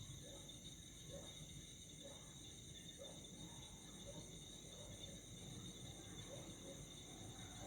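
Faint chorus of night insects, crickets chirring steadily at several high pitches, one of them in a fast pulse. Soft short low notes come about once a second underneath, over a low rumble.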